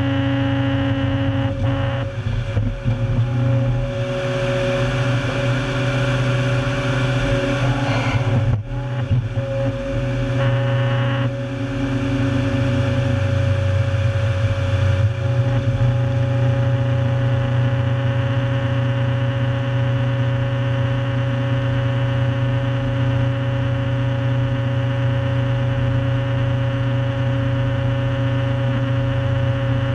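Heavy tracked stump-destroyer machine of over 400 hp running steadily under load, its engine and drive making a constant hum. Brief dips and changes in the sound come about two and nine seconds in.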